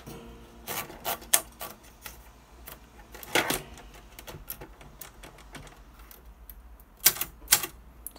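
Korean two-set (dubeolsik) layout typewriter being typed on: separate, irregularly spaced key strikes, the sharpest about a second in, midway, and a pair near the end.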